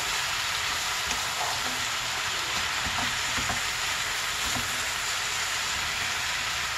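Raw lamb tripe sizzling in hot oil with sliced green peppers and onion, freshly added to the frying pan and being stirred with a wooden spoon: a steady frying hiss with a few soft knocks of the spoon.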